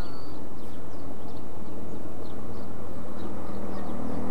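Steady low engine hum from a miniature park railway locomotive running out of sight, with a slightly higher note joining near the end. Faint high bird chirps come and go over it.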